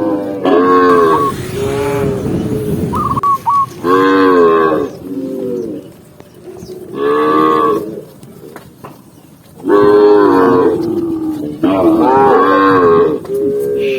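Cow mooing over and over: about five long, loud calls with short pauses between them.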